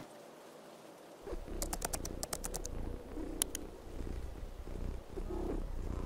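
A cat purring, a low steady rumble that starts about a second in. A quick run of sharp clicks comes about two seconds in, with one more click a moment later.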